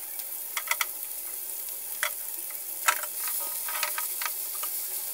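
Sliced red onions sizzling in hot mustard oil in a nonstick frying pan. Scattered sharp clicks sound as a spatula stirs them, with a louder one about three seconds in.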